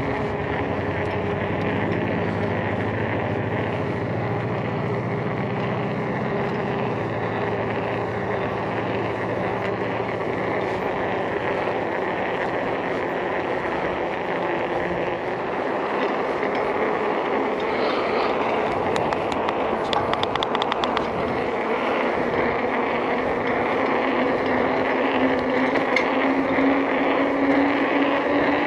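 Riding noise of a mountain bike heard from a body-mounted action camera: steady wind rush on the microphone and tyres rolling on pavement. A quick run of ticks comes about two-thirds of the way through.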